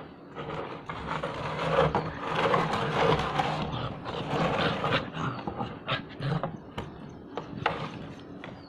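Saint Bernard puppy rooting about inside a plastic tub on concrete: a scuffling, rustling noise for the first five seconds or so, then a quieter stretch with a string of sharp knocks and clicks.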